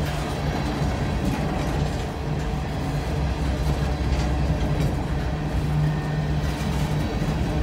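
Empty steel coal hopper cars of a freight train rolling past, their wheels rumbling steadily on the rails with a few light clanks.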